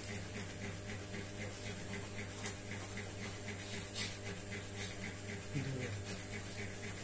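Quiet room tone: a steady low hum under faint, evenly spaced ticking at about four a second, with a few soft clicks and a brief low falling sound about five and a half seconds in.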